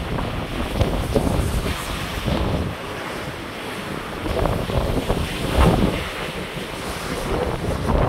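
Strong gusting wind buffeting the microphone over waves breaking into white water along a cruise ship's hull, with winds of 30 to 40 miles an hour. The wind eases briefly about three seconds in, then gusts again.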